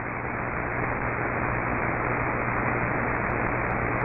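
Radio receiver static: a steady hiss with a low hum underneath, coming in at about the loudness of the broadcast voice in the gap between warning messages.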